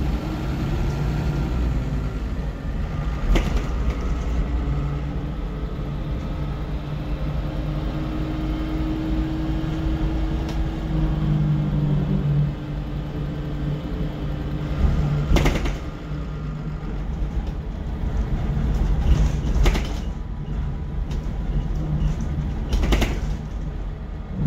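MAN 18.240 bus's six-cylinder diesel engine running under way, heard from inside the saloon, with a slight dip in loudness about halfway through. A few sharp knocks stand out above the engine.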